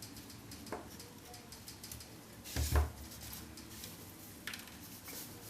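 Small plastic and metal parts of a disassembled mini camera being handled and pulled out: scattered light clicks and rattles, with a soft knock about two and three-quarter seconds in.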